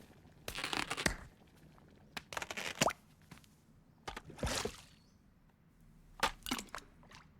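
Animated-film Foley sound effects: four short bursts of noise, each under a second long and spaced a second or two apart.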